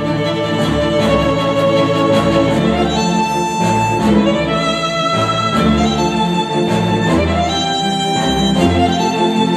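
Recorded music played back through KEF R3 bookshelf speakers driven by a NAD C 388 integrated amplifier: held string notes over a bass line that pulses about once a second.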